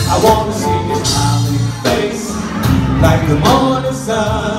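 Live gospel band playing, with a man singing lead over drums, congas, saxophone and keyboard.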